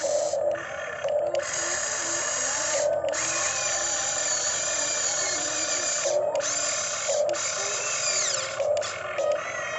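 Radio-controlled model excavator's electric motors whirring as it works, with whining tones that shift in pitch and several brief stops and restarts.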